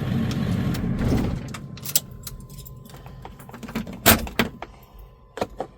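Ford E350's 7.3 Powerstroke turbo-diesel V8 idling, then switched off about a second in, after idling to let the turbo cool down. A few sharp clicks and knocks follow, the loudest about four seconds in.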